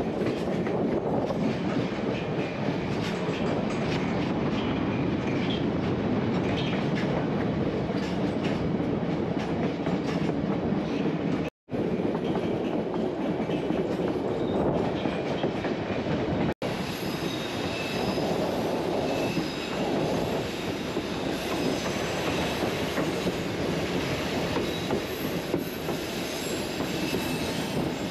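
Narrow-gauge train running along the rails: a steady rolling rumble with faint high wheel squeal, which is more noticeable in the later part. The sound cuts to silence briefly twice near the middle.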